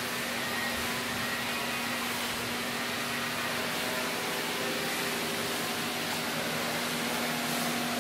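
Steady machine hum with a constant low tone over an even hiss, from a powered-up DMG Mori NTX-2000 CNC mill-turn lathe standing idle, its spindles not turning.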